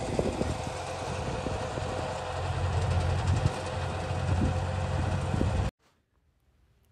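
John Deere tractor engine running steadily with a strong low hum as it pulls a super seeder through the field. It cuts off abruptly near the end.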